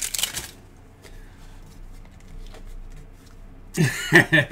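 Plastic packaging crinkling that stops about half a second in, then quiet hand handling. Near the end comes a short loud burst of strained, pitched noise as hands squeeze and twist open a small plastic football-shaped figurine capsule.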